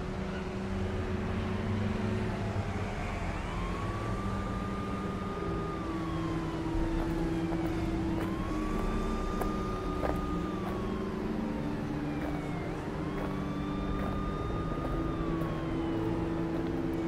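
An emergency-vehicle siren wailing, rising quickly, holding, then falling slowly, about every five seconds, over a low steady drone.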